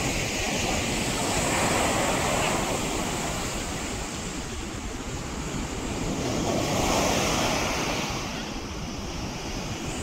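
Sea surf breaking and washing up the shore in a steady rush, swelling louder twice, about two seconds in and again about seven seconds in.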